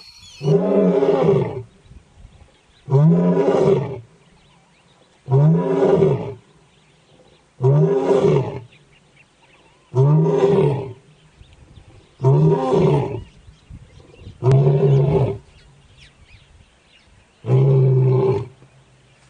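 Male lion roaring: eight deep roars in a row, about one every two and a half seconds, each rising and then falling in pitch.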